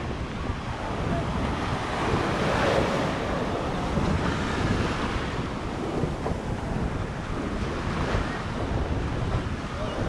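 Small surf washing onto a sandy beach, with wind rumbling on the microphone.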